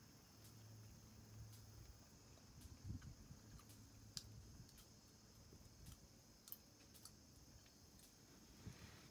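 Near silence: faint outdoor ambience with a steady high hiss and a scattering of faint clicks and ticks.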